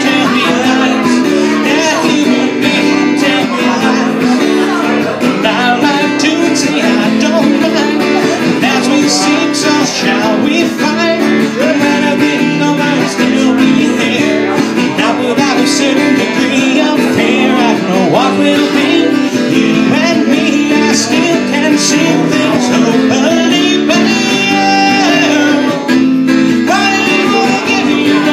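A man singing while strumming a late-1970s Guild G-41 acoustic guitar, a steady strummed chord rhythm under the voice.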